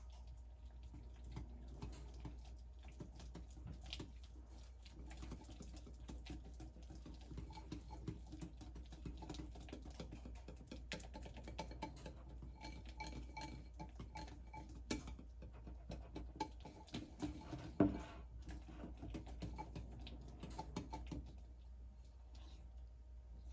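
Wire whisk beating cream cheese frosting in a glass bowl: rapid, uneven clicking of the wires against the glass and through the thick mixture, with one louder knock a little before the end.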